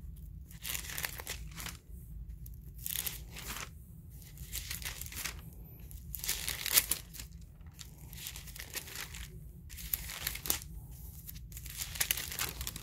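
Thin Bible pages being turned by hand, one after another: a run of irregular papery swishes and crinkles.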